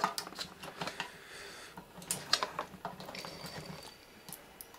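Drive motor and gear train of a Honeywell aircraft altitude indicator running in reverse, turning the counter drums: a faint hum with many irregular light clicks and ticks from the gearing.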